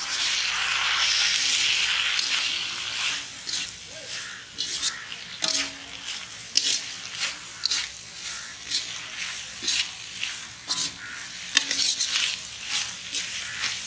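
Mutton and shredded vegetables sizzling in a large iron kadai: a loud hiss swells over the first few seconds as the just-poured vinegar and sauces hit the hot pan, then a metal slotted spatula scrapes and clatters against the pan about once or twice a second as the mix is tossed.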